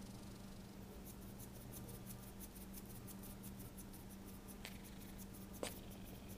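A cat making a rapid, even run of soft clicks, about six a second, with two sharper clicks near the end.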